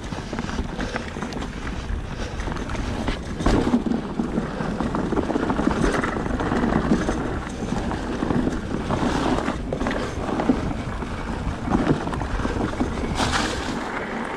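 Wind buffeting the microphone over the running noise and rattle of an electric mountain bike on a trail, with a sharp knock every few seconds from bumps.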